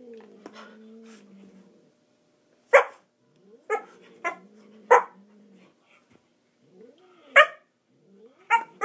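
Husky giving about six short, sharp play barks, several of them in a quick run, with a low, drawn-out growling wail rising and falling underneath between the barks.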